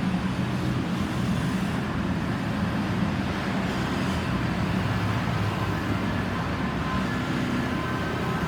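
Steady road traffic noise, vehicles running past. Faint steady tones of an approaching siren begin to show near the end.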